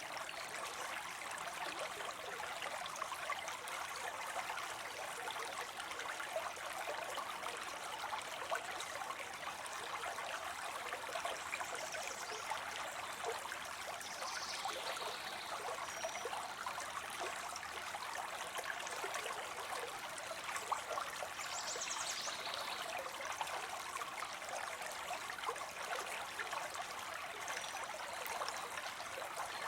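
Small waterfall of water spilling into a pond, a steady splashing and trickling rush. A few faint high chirps come through it now and then.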